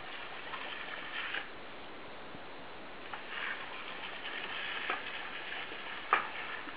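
Garden hose spray hissing and splashing against a Labrador's face and open mouth as she bites at the stream, the splashing coming and going, with a few sharp clicks of her jaws snapping shut, the loudest about six seconds in.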